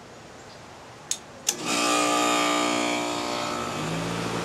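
Amana ASZ13048 4-ton heat pump outdoor unit starting up for the first time: two sharp clicks, then the compressor and condenser fan come on with a sudden loud hum and hiss. The hum settles to a steadier, slightly lower run about two seconds later.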